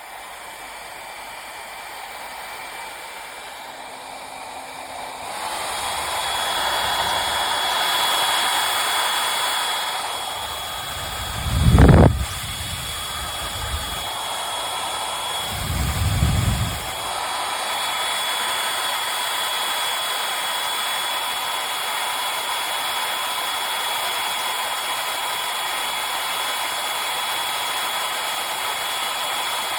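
Brushless-motor ionic hair dryer blowing steadily, getting louder about five seconds in, with a steady high whine above the rush of air. Two brief loud low rumbles break in around the middle.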